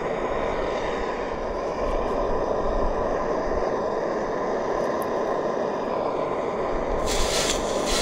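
Steady rushing of the MAPP-gas torch firing a small homemade melting furnace. About seven seconds in, a short hiss as the hot crucible tongs are plunged into a pan of water.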